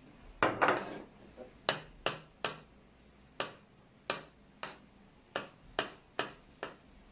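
Knife chopping on a wooden cutting board: about a dozen sharp knocks at an uneven pace, the loudest cluster about half a second in.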